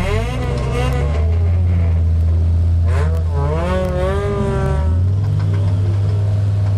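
Audi race car's engine running hard, heard from inside the stripped cabin. Its low drone steps up in pitch about five seconds in. Wavering, gliding higher tones sound over it near the start and again in the middle.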